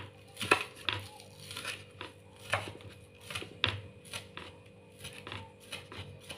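Kitchen knife slicing spring onions on a wooden cutting board: the blade knocks on the board in an uneven rhythm of about two cuts a second.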